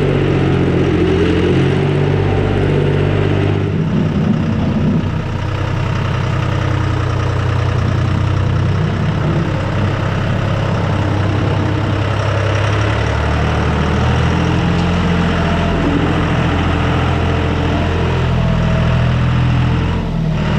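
John Deere tractor engine running steadily, its pitch shifting a few times as the engine speed changes while scraping out a barn.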